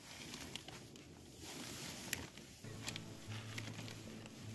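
Rustling and brushing of fabric as a blanket and a sleeping bag are handled and spread out inside a nylon tent, with a few short sharp ticks. A faint low steady hum comes in about two-thirds of the way through.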